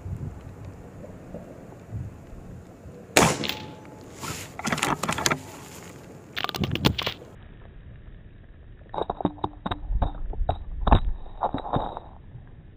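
A .22 Reximex Throne Gen2 PCP air rifle firing: a sharp crack about three seconds in, followed by clusters of clicks and knocks. Near the end comes a quicker run of duller clicks and knocks.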